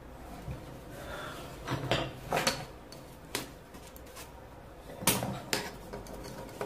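Hand tools clinking and scraping against terracotta floor tiles and wet mortar: a handful of short, sharp knocks at irregular intervals.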